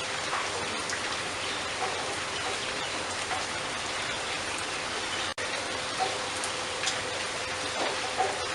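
A steady, even hiss with a few faint, short bird chirps above it. The sound cuts out for an instant about five seconds in.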